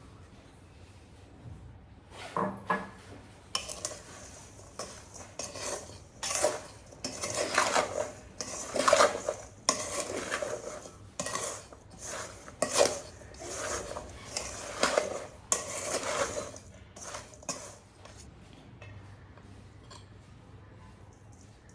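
Kitchen utensils and dishes clattering: irregular clinks and scrapes that start about two seconds in, are busiest in the middle, and die away near the end.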